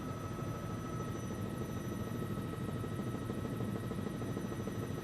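News helicopter in flight, heard on board: steady rotor and engine noise with a constant high tone running through it.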